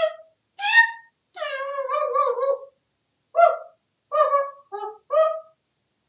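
African grey parrot vocalizing: a run of about seven short pitched calls, with a longer wavering call about one and a half seconds in.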